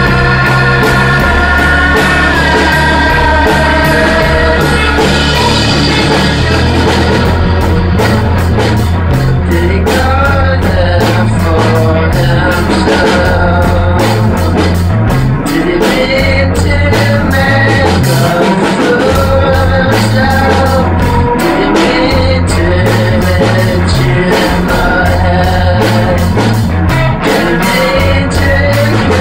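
Rock band improvising at rehearsal, recorded live in the room: loud drums and instruments with a singing voice re-amped through a Leslie rotating speaker cabinet.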